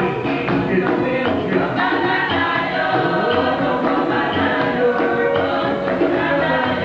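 Gospel church music: a group of voices singing over a steady percussion beat.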